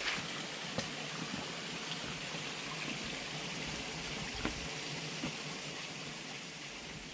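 Small forest stream running over a rocky bed: a steady rushing hiss that slowly fades near the end, with a few faint footfalls on rock.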